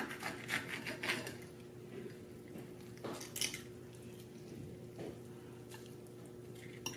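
Knife and fork cutting into a roasted, skin-on chicken drumstick on a plate: faint soft scrapes and a few light clicks of the cutlery, over a low steady hum.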